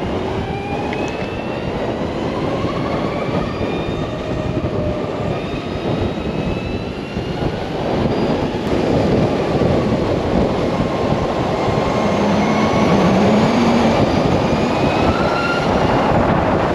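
LiveWire electric motorcycle under way: the electric motor's whine, several thin tones gliding slowly up in pitch as it gathers speed, over a rush of wind and road noise that grows louder about halfway through.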